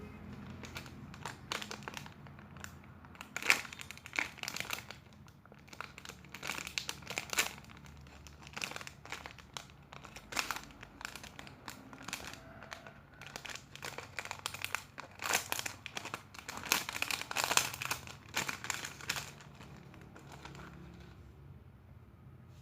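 Plastic crinkling and crackling in irregular bursts as squishy toys are handled and squeezed. It is busiest around a quarter of the way through and again in the last third, then dies away near the end.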